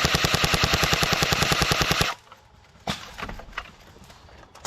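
Airsoft rifle firing a long, rapid full-auto burst that stops abruptly about two seconds in. A few single sharp pops follow.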